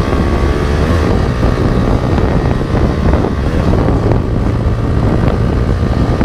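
Motorcycle fitted with an Akrapovic M1 slip-on exhaust accelerating at full throttle on a speed run, with wind noise on the microphone. The sound is loud and cuts off abruptly at the end.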